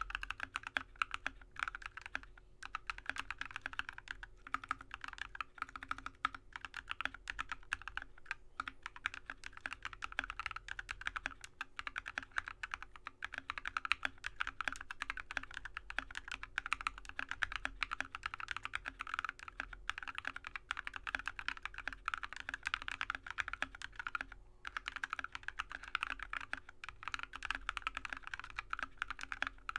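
Steady, fast typing on a Drop ALT mechanical keyboard with Alpaca linear switches lubed with Tribosys 3203 and filmed, topped with MT3 keycaps: a continuous patter of keystrokes with a brief pause about three-quarters of the way through. A faint steady hum sits underneath.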